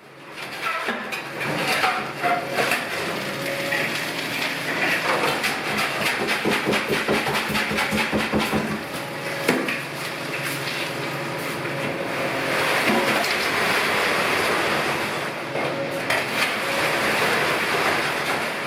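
Concrete mixer truck running with a dense, continuous clattering rattle.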